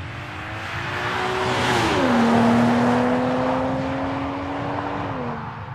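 A car driving past at speed. Its engine note drops in pitch as it passes, about two seconds in, while tyre and wind noise swell to their loudest. The engine note falls again near the end as it pulls away.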